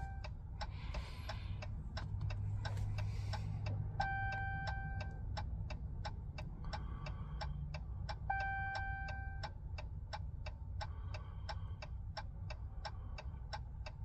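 A 2021 Ram pickup's dashboard ticks steadily with the hazard flashers on, several clicks a second. A held warning chime repeats over the ticking about every four seconds while the ignition is on and the engine is off.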